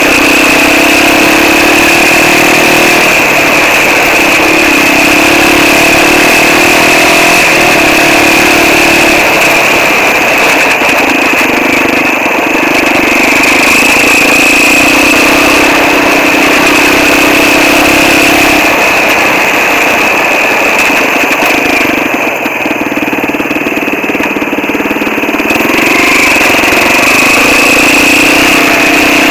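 Quad bike engine running under riding load, heard close from the machine carrying the camera, its note stepping up and down as the throttle is opened and eased. It drops off briefly a little past two-thirds through, then picks up again.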